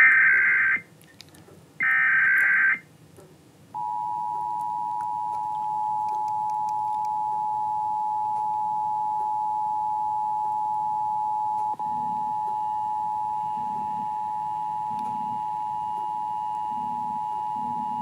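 Recorded Emergency Alert System audio played back on a computer. Two short warbling bursts of SAME header data tones come in quick succession. About a second later the steady two-tone EAS attention signal (853 and 960 Hz) starts and holds, marking the start of an alert.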